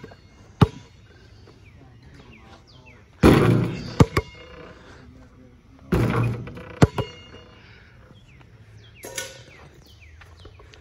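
A basketball bouncing on an asphalt driveway. About 3 s and 6 s in it strikes the metal hoop with a loud clang that rings briefly, then bounces a couple of times on the pavement. Birds chirp faintly in the background.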